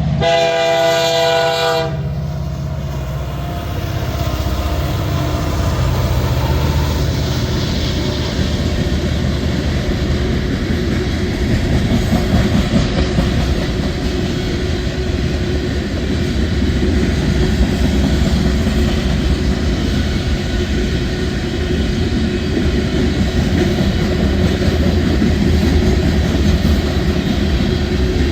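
Diesel locomotive horn sounding a chord for about two seconds at the start, then a freight train rolling past with a steady rumble and wheels clattering over the rails.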